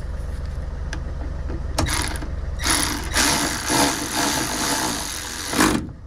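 Cordless electric ratchet running for about three seconds, starting around the middle, as it drives in a van's seat-belt anchor bolt.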